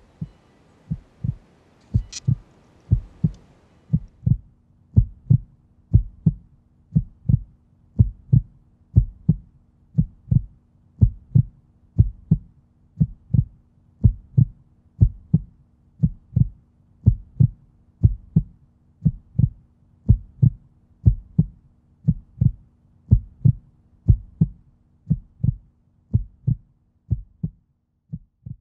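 Slow, steady low thuds in pairs, about one pair a second, with a faint steady hum joining about four seconds in.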